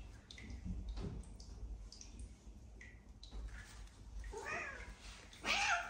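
Cat meowing twice, a short meow about four and a half seconds in and a louder, longer one near the end, while it is being rubbed dry with a towel.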